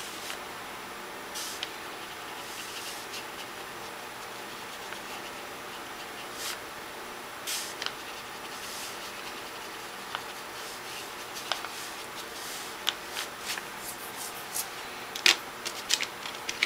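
A paintbrush stroking and dabbing on paper, with scattered light scratches, taps and clicks from art materials being handled, over a steady faint hiss. The clicks come more often near the end.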